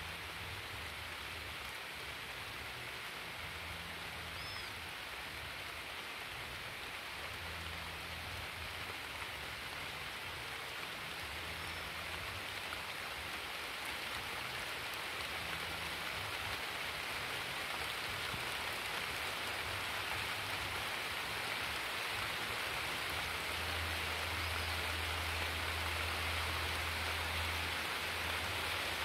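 Steady rain falling, a dense even hiss that grows gradually heavier, with a low rumble coming and going underneath.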